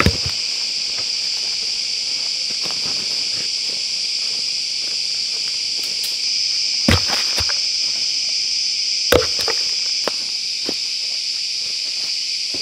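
A steady, high insect chorus drones throughout. Footsteps crunch over dry leaf litter, and sharp knocks of wood on wood come right at the start and twice more, about seven and nine seconds in.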